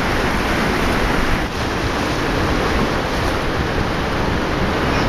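Rough sea surf breaking and washing up the shore: a steady loud rush, with wind blowing across the microphone.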